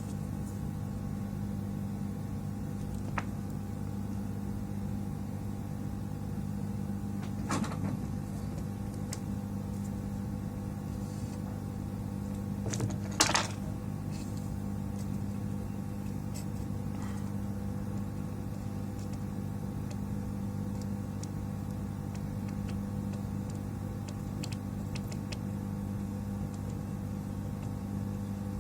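Steady hum of a small fan or blower on an electronics repair bench, with a few light clicks and knocks from handling tools and parts. The loudest knock comes about thirteen seconds in.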